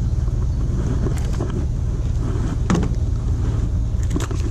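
A steady low mechanical hum, with a few light clicks and a knock from handling in the boat.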